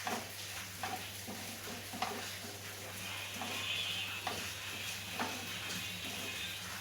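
Spatula stirring and scraping semolina as it roasts in a kadhai with oil, about one scrape a second over a low sizzle. A steady high hiss joins about halfway through.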